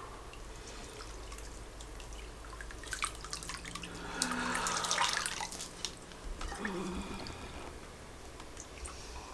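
Water dripping and trickling, with a louder splashing stretch about four to six seconds in. A brief low voice sound comes near seven seconds in.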